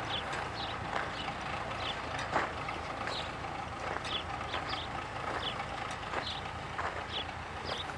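Small wheeled tractor's engine running steadily while it pulls a garlic-bulblet seeder over tilled soil, with occasional clanks from the rig. Short high chirps come at irregular intervals.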